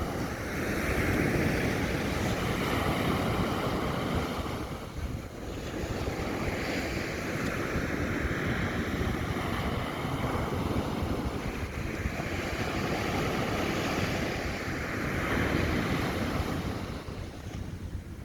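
Sea waves breaking and surf washing up the shore, a rushing roar that swells and fades every few seconds as each wave comes in.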